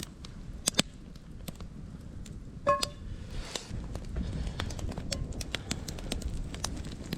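Campfire crackling, with frequent sharp pops over a low rumble. About two and a half seconds in, a short metallic ring, like a pan or utensil being knocked.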